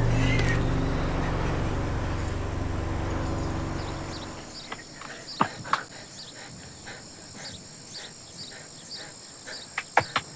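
Sustained low music chords fade out over the first four seconds. Then a steady high chirring of crickets or other insects, with a few short sharp knocks.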